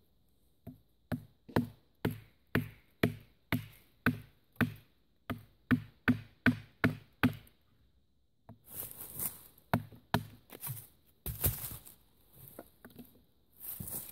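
A wooden baton striking the spine of a fixed-blade bushcraft knife to drive it through a piece of wood: a run of about sixteen sharp wooden knocks at roughly two a second. After a short pause comes a rougher stretch of scraping and cracking, with a few more knocks.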